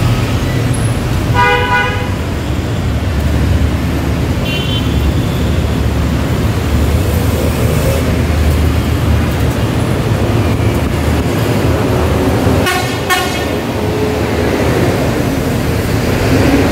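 Bus engine and traffic running steadily on a rain-wet road, with a short horn toot about a second and a half in and a brief higher toot a few seconds later. Two quick horn blasts come close together about three-quarters of the way through, as the intercity bus draws near.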